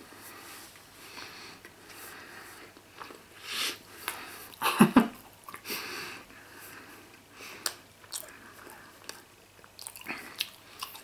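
A man chewing a mouthful of cold Emmentaler cheese, soft and rubbery, with wet mouth clicks and smacks. A louder short mouth or breath sound comes about five seconds in.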